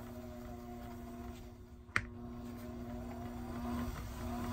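Small electric motor of a rod-building lathe running steadily with a low hum, turning the chuck that holds the fly rod's grip and blank. A single sharp click about two seconds in.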